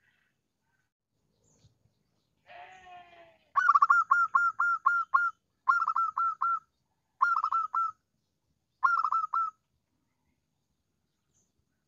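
Zebra dove (perkutut) cooing: a rough, falling opening note, then four quick runs of short, clipped coos, each run a little shorter than the one before.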